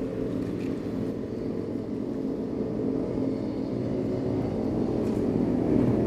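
A motor vehicle engine running steadily with a low hum, growing gradually louder.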